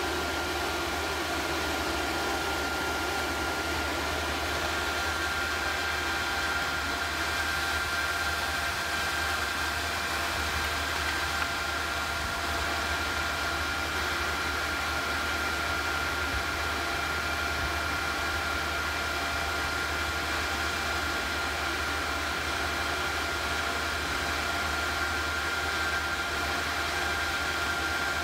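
Small induction heater running steadily while it heats a graphite crucible of bronze to melting: a constant hiss with a high steady whine and a low hum underneath.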